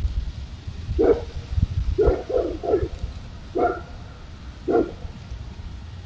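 An animal barking six times in short, separate barks: one, then a quick run of three, then two more spaced about a second apart.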